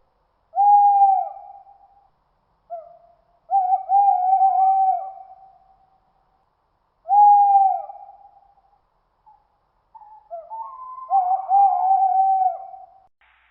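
An owl hooting: a series of pitched calls, each about a second long. Several calls overlap near the end.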